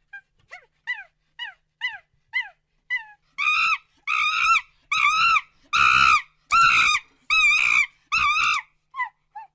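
Monkey calling: a quick run of short calls that fall in pitch, then about six louder, longer calls in a row, each rising and falling in pitch, tailing off into two faint calls near the end.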